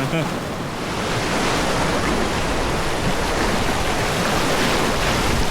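Rushing river water, a steady noise that grows a little louder about a second in.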